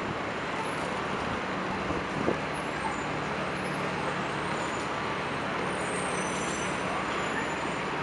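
City street traffic: a steady wash of passing vehicles with a low, even engine hum.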